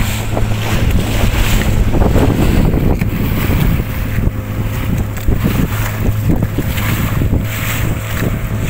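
Small outrigger fishing boat under way: its engine running with a steady hum, water splashing off the hull and wind buffeting the microphone.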